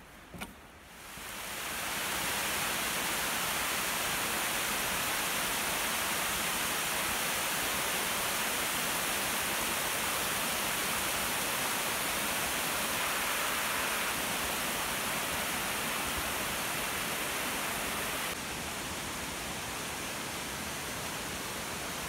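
Steady rush of water down a 200-foot slide waterfall, sheeting over a sloping rock face in high spring flow. The rush swells in over the first two seconds and drops a little about eighteen seconds in.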